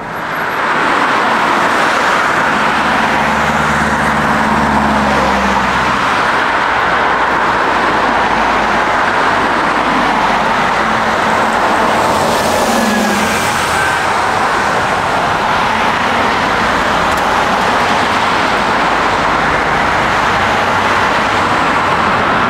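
Jet airliner engines at close range: a loud, steady rush of engine noise that swells in at the start and holds, with a faint whine that dips slightly in pitch about halfway through.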